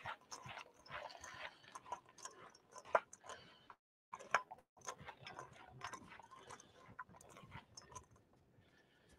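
Faint, irregular clicks and rustles of chopped onion and celery being handled with chicken stock, with a brief complete dropout a little before halfway.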